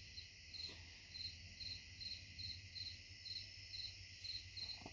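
Cricket chirping steadily and faintly, about two to three short chirps a second, over a steady insect hiss.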